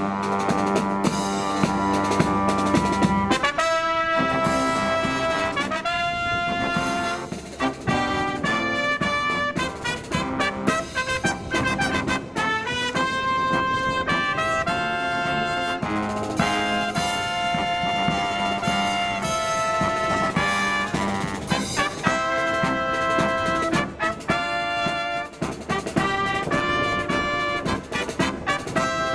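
Live marching brass band playing, with trumpets, trombones and drums: held chords and moving phrases over a steady beat.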